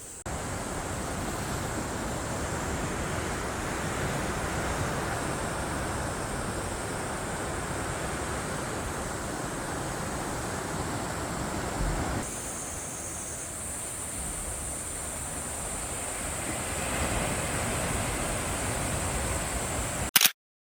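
Steady rushing outdoor noise with a thin, high, continuous buzz above it. The sound changes abruptly about twelve seconds in and cuts off suddenly just before the end.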